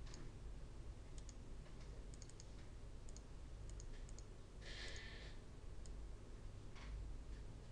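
Faint computer mouse clicks, scattered and often in quick pairs, over a low steady hum, with one short hiss-like rustle about five seconds in.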